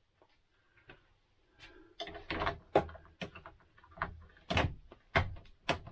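A motorhome air-conditioning duct part being pushed and knocked into place, a quick run of sharp clicks and knocks starting about two seconds in.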